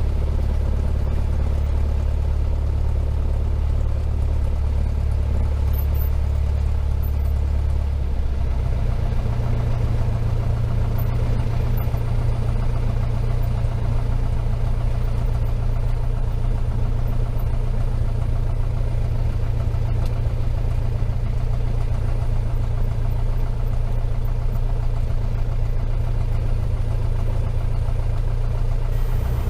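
Cessna 172's piston engine and propeller running steadily at low power, the engine speeding up about eight seconds in and holding the higher speed.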